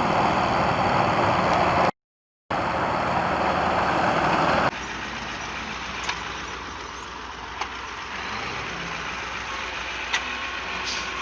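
Heavy vehicle engine running loud, dropping out for a moment about two seconds in. About five seconds in it gives way to a quieter engine running, with a few sharp clicks.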